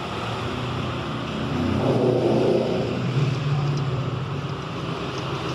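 Road traffic: a passing motor vehicle's engine hum swells about two seconds in and then eases, over a steady traffic din.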